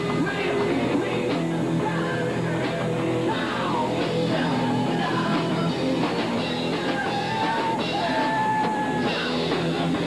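Live rock band playing a song, with a singer over the band.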